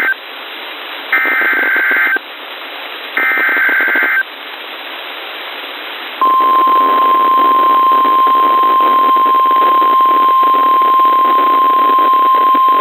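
Emergency Alert System header over NOAA Weather Radio: the end of one harsh burst of SAME digital data tones and then two more, each about a second long, encoding the next severe weather warning. About two seconds after the last burst, the steady 1050 Hz warning alarm tone starts and holds. Radio hiss runs underneath throughout.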